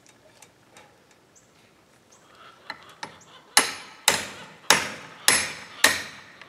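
Hammer blows knocking the fastening strips off a greenhouse frame: a few faint taps, then five sharp, loud strikes about half a second apart, each ringing briefly.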